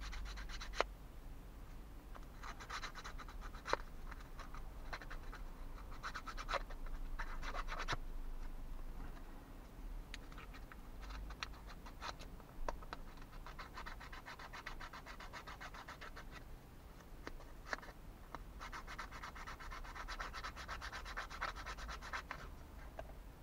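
Small wooden kit part being hand-sanded with a thin sanding stick, in quick back-and-forth scratching strokes. The strokes come in several spells of a few seconds each, with a few sharp clicks in between. The sanding eases a part that is too tight a fit to push in.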